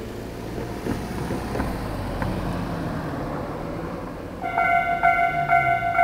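Cars driving over a railway level crossing. About four and a half seconds in, the crossing's Tobu-type electronic warning bell starts, ringing about twice a second: the crossing has activated for an approaching train.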